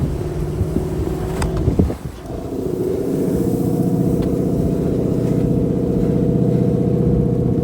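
Toyota 4Runner's V8 engine working under load as the truck pushes through snow and ruts. It is uneven with a few knocks for the first two seconds, then holds a steady, even pitch.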